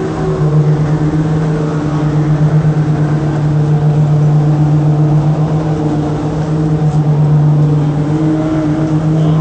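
Train horn sounding one long, loud, low note made of several tones held together, starting suddenly and lasting about ten seconds.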